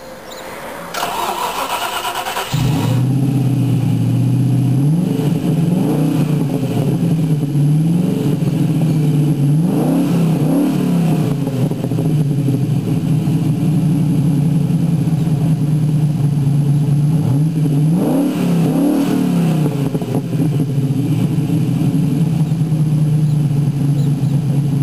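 TVR Chimaera 4.0's Rover V8 turned over on the starter and catching about two and a half seconds in, then idling with a rumble through the exhaust. The revs are blipped up and let fall back three times.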